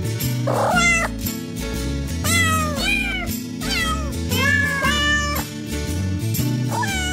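Thai kittens meowing repeatedly, about six short high meows that rise and fall in pitch, over background music with a steady beat.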